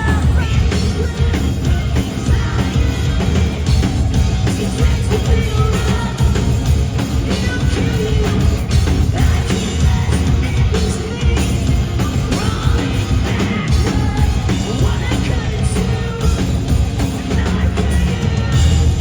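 Live rock band playing loudly, with drums and a singer's voice over the band.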